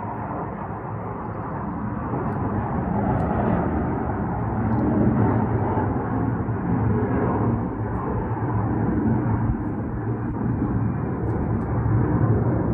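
A steady, low droning rumble from the sky with a few humming tones in it, growing louder over the first few seconds.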